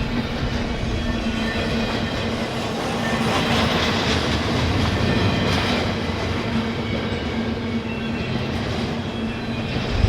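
Slow-moving intermodal freight train rolling past: a steady rumble of steel wheels on the rails, with a low steady hum underneath.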